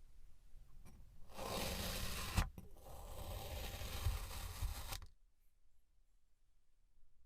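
Kinetic sand being cut through with a knife: a scraping noise of about a second, a sharp click, then a second, longer stretch of scraping lasting about two and a half seconds.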